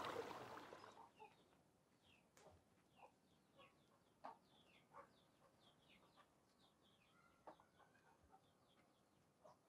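Faint clucking of chickens: many short, quick falling calls. A few soft knocks come through, and a rush of flowing water fades out within the first second.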